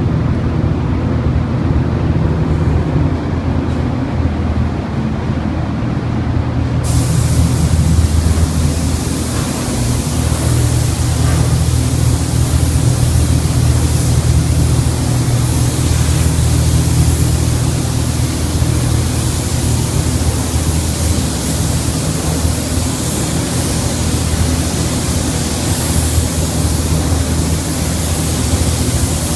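Gravity-feed paint spray gun hissing as it sprays a car body, the hiss coming in about seven seconds in, over a steady low hum.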